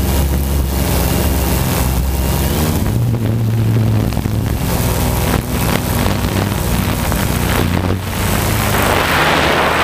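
Quadcopter motors and propellers running in flight, heard close up from the onboard camera: a steady hum of several tones whose pitch shifts up and down as the motors change speed. A louder hiss of rushing air builds near the end.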